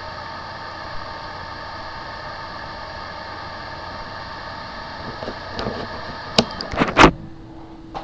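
Hard drive with a bad motor IC, giving a steady whine made of several tones. Near the end come a few loud sharp clicks, and after them only a faint low steady hum.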